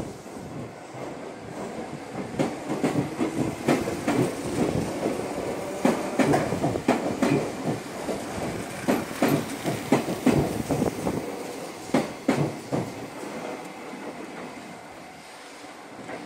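A Meitetsu 6500 series electric train departing. It rumbles past and its wheels clatter over the rail joints in a string of sharp clicks that builds through the middle, then thins and fades as the last cars pull away.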